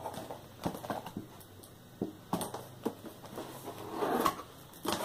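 Cardboard pedalboard packaging being handled and opened: several sharp knocks and taps of the boxes, with a scraping rustle of cardboard sliding about four seconds in, the loudest part.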